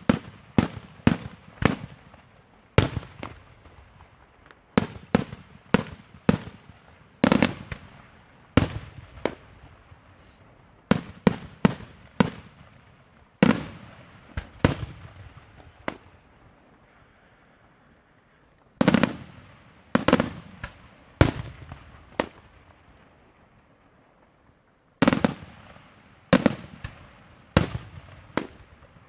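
Daytime fireworks display: loud explosions going off one after another in quick bunches, each bang trailing off in an echo, with two short pauses of a few seconds between volleys.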